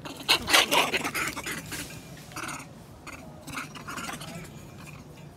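Long-tailed macaques scuffling and calling: a quick run of short, scratchy squeaks and scrapes in the first couple of seconds, then scattered quieter ones.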